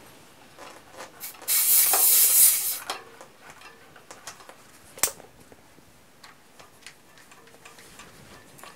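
A hiss of air of about a second from a fat-bike tyre's valve as the electric inflator's hose chuck is worked off it, followed by small clicks and taps of the valve fittings being handled, with one sharper click about five seconds in.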